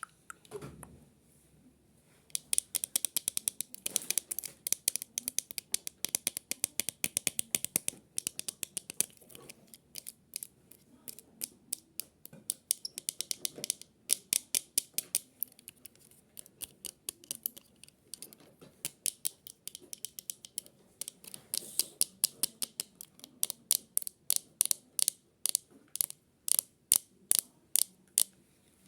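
Rapid sharp clicking in long irregular runs of several clicks a second, starting about two seconds in, with short pauses between runs.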